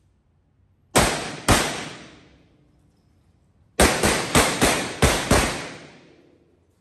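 Revolver gunshots echoing through an indoor range: two shots about half a second apart, then after a pause a quick string of six more shots.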